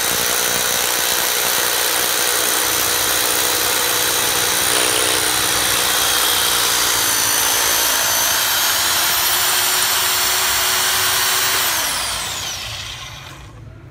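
Classic CLA-5426 1010 W rotary hammer drill running at full speed while drilling with a bit. About 12 seconds in the trigger is released and the motor winds down with a falling whine.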